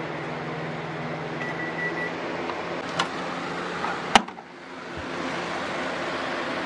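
Hamilton Beach microwave oven humming through the last seconds of its heating cycle, then one long beep about a second and a half in as the timer runs out, after which the hum stops. About three and four seconds in come two clicks as the door is opened, the second a sharp, loud latch pop.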